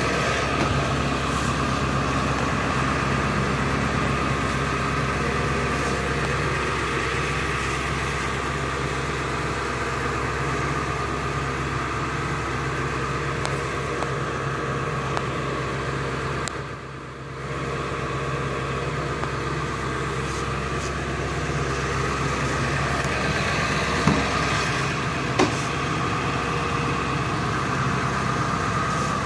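Steady mechanical hum of a running machine, with two sharp clicks about a second and a half apart near the end.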